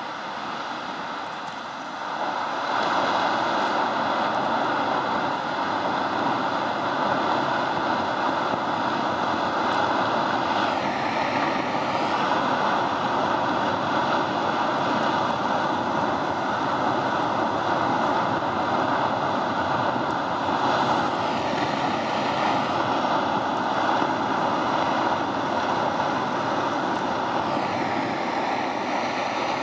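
Large ice avalanche cascading down a steep rock face onto a glacier: a continuous rushing roar that gets louder about two seconds in and then holds steady. A faint steady whine runs through it.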